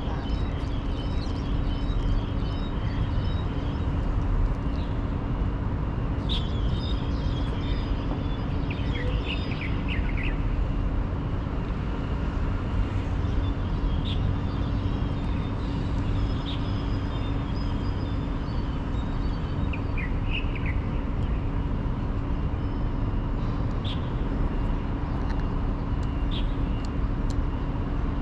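Steady low outdoor rumble with a constant hum under it, and small birds chirping in short bursts now and then.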